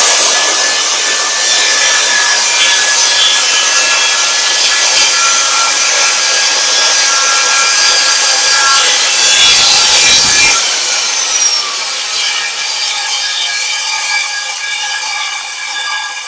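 Circular saw guided along a shop-made Masonite track, running at full speed as it cuts through a board. About ten seconds in the motor is switched off, and the blade winds down slowly, its pitch falling.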